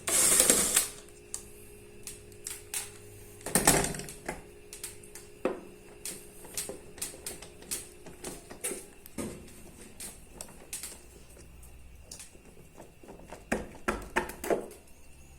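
Hand tools clicking and knocking against metal while the washing machine's drive pulley is being loosened and freed. There is a loud scraping burst at the start, a heavier knock about four seconds in, and scattered small clicks after that.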